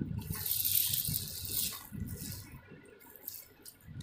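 Small plastic and glass craft pieces (beads and folded pipe stars) being handled close to the microphone, rustling and rattling. The loudest part is a hissing rustle lasting about a second and a half soon after the start, followed by fainter rustles and light clicks.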